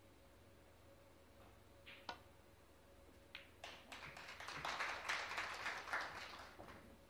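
Snooker break-off: the cue strikes the cue ball with a sharp click about two seconds in, and the cue ball knocks into the reds about a second later. This is followed by a few seconds of light audience applause that swells and dies away.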